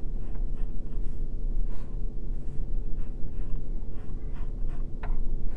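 Graphite pencil scratching on paper as it is drawn along a plastic ruler in a series of short strokes, over a steady low hum.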